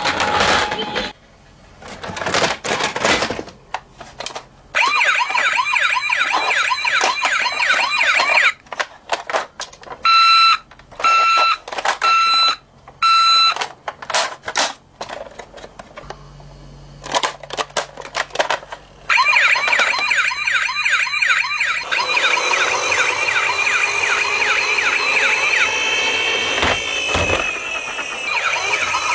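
Battery-powered toy ambulances sounding their electronic sirens through small speakers: a fast warbling wail in several stretches, the longest filling the last seven seconds. About ten seconds in there is a run of four steady beeps, and sharp clicks and knocks from the toys being handled come in the gaps.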